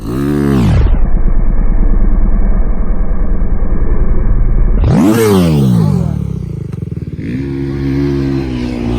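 Dirt bike engine being ridden, revving up and down: it climbs into a long loud steady stretch, revs up and drops again about five seconds in, then settles at a lower, steadier pitch near the end.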